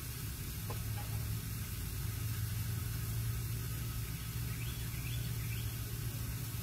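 A steady low rumble, with a small bird chirping three quick rising notes about four and a half seconds in.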